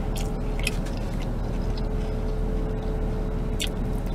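Steady low hum inside a car cabin with a faint steady tone through it, and a few soft clicks and smacks of someone eating.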